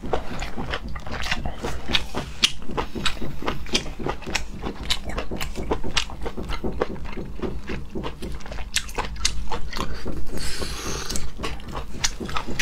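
Close-up wet, sticky clicks and smacks of plastic-gloved fingers pulling apart whole squid in chili oil, mixed with chewing and biting. There are a few smacks each second and a short hiss near the end.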